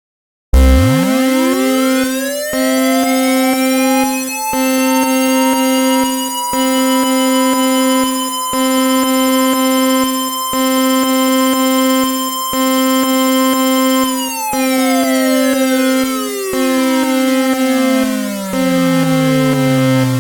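Synthesized siren-like alert tone. It starts suddenly about half a second in, sweeps up to a high held pitch, then slides slowly back down over the last several seconds. Under it a steady lower tone breaks off briefly about every two seconds.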